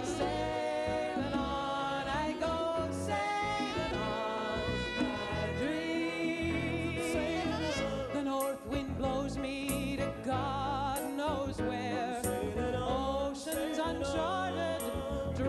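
Woman singing long, wavering held notes without clear words, over piano and band accompaniment, with bright percussion strokes joining in about halfway through.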